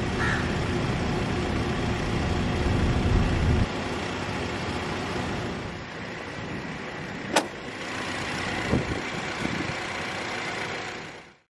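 Steady vehicle running noise, louder for the first three and a half seconds, then quieter. A single sharp click comes about seven seconds in, as the bonnet is lifted open.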